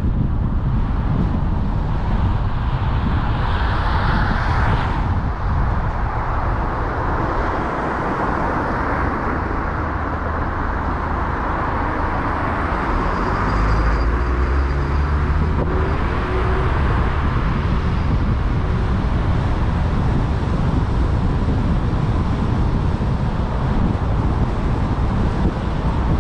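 Car being driven: steady road and tyre noise with a low engine rumble, the engine note shifting for a few seconds about halfway through.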